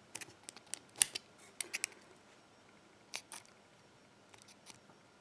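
Small metal clicks and taps from handling a Basi pin-tumbler lock and working its removable cam: a quick cluster of clicks in the first two seconds, the sharpest about a second in, then a couple more about three seconds in and a few faint ticks after.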